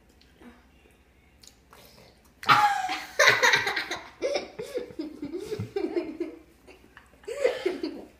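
High-pitched laughter: a string of short rising-and-falling giggles for about four seconds, starting about two and a half seconds in, with a shorter burst near the end.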